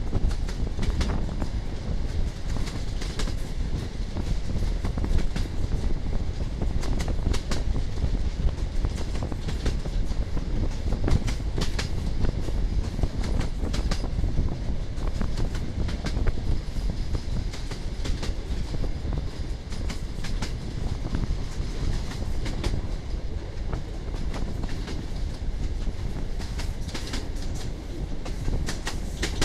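Moving passenger train heard from an open coach window: the wheels clatter over rail joints in a quick, uneven run of clicks over a steady low rumble.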